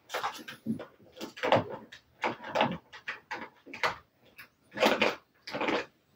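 Savannah kittens batting at a plastic ball-track toy: a string of short, irregular knocks and rattles of plastic.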